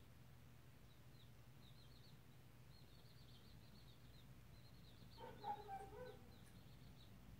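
Near silence: a low steady hum with faint, short high-pitched chirps repeating throughout, and a brief louder pitched call a little after five seconds in.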